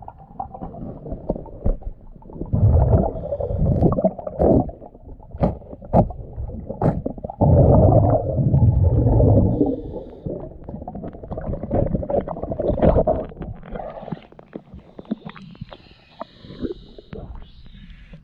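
Scuba diver's exhaled air bubbling out of the regulator, heard underwater as loud low rumbling gurgles in long bursts a few seconds apart, with scattered sharp clicks. Near the end, lighter water sloshing as the diver reaches the surface.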